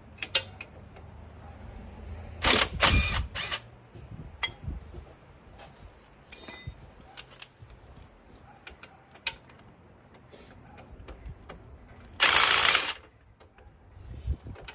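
Short bursts of a power tool loosening suspension bolts: a quick cluster of bursts about two and a half seconds in and one longer burst near the end, with scattered clicks and clanks of tools between.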